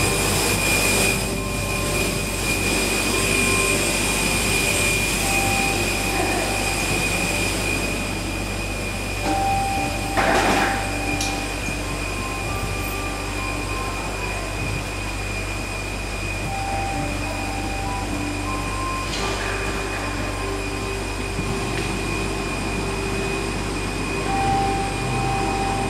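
Steady machinery ambience in an airport jet bridge: a low hum under a constant high-pitched whine, with a brief clatter about ten seconds in.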